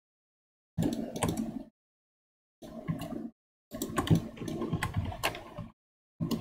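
Computer keyboard and mouse clicks in four short bursts, with a low hum under each, dropping to dead silence between bursts as a noise gate on the microphone closes.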